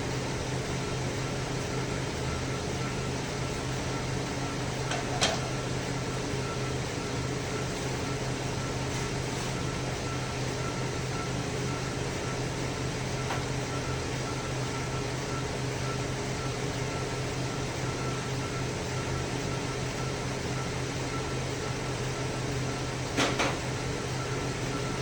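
2010 Chevy Traverse's V6 engine idling with a steady, even hum, on a car being checked for cylinder misfire codes. Two brief clicks, about 5 seconds in and near the end.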